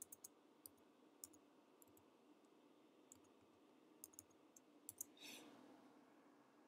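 Faint, irregular clicks of computer keys being typed, a dozen or so scattered over a few seconds, over a low steady room hum, with a brief soft hiss about five seconds in.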